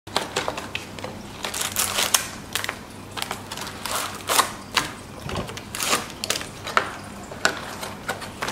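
Foil trading-card packets crinkling and crackling as a hand pulls them out of a cardboard display box, in a run of irregular sharp rustles.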